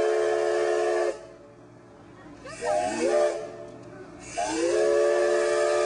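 Chime train whistle, several notes sounding together over a steam hiss, blown twice. The first blast stops about a second in. A short wavering pitched sound comes near three seconds. The second blast slides up into the chord about four and a half seconds in and is held.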